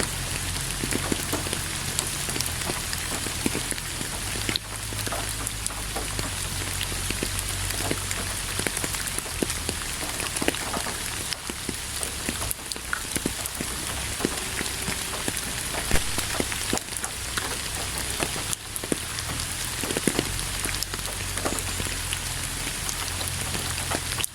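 Steady rain falling onto a surface, a constant hiss with many individual drops ticking and pattering close by.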